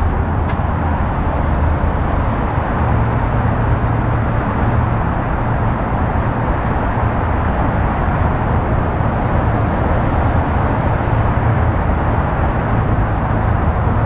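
Freeway traffic on Interstate 5: a steady, unbroken roar with a constant low hum.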